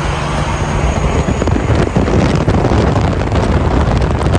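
Steady highway road and wind noise from inside a moving vehicle, with an old Kenworth semi truck running close alongside in the next lane.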